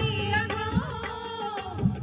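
Two women singing a song into microphones over electronic keyboard accompaniment, with a low beat about once a second.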